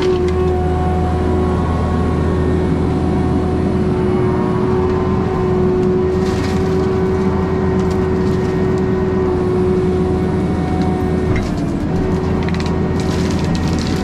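Skid steer running a Brush Hound FH Series flail mower, its engine and spinning flail rotor making a steady drone with a held tone. The tone dips briefly about eleven seconds in, and short bursts of noise come about six seconds in and near the end as it works into material.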